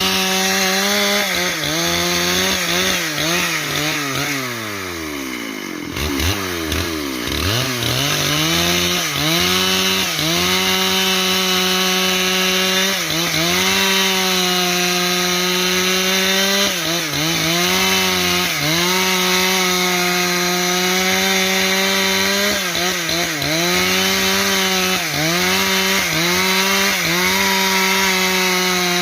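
Two-stroke chainsaw running near full throttle while ripping a log into boards, its engine pitch sagging briefly each time the chain bogs in the cut and recovering. About four seconds in the engine drops low toward idle, then revs back up to full speed.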